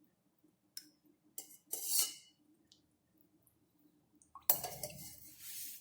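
A few clinks of a metal spoon against a steel bowl as oil shortening is spooned into bajra flour. About four and a half seconds in, a louder, continuous scraping and rustling noise begins as the oil goes into the flour mixture in the bowl.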